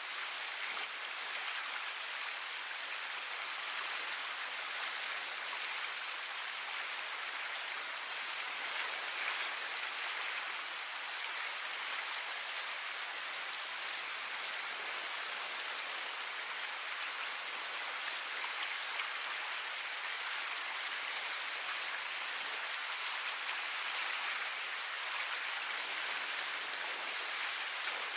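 Steady rushing hiss of water, even and unbroken with no distinct wave crashes.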